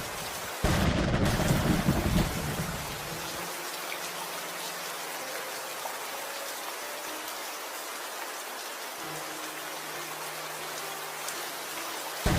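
Steady rain falling, with a low roll of thunder that starts suddenly about half a second in and fades out by about three seconds; after that the rain goes on alone, and another rumble starts right at the end.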